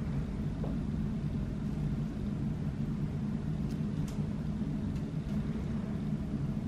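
Steady low hum with a couple of faint ticks about halfway through.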